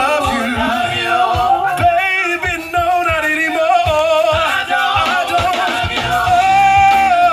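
Live band playing an R&B song, a singer running wavering, ad-libbed vocal lines over drums and bass, holding one long note near the end.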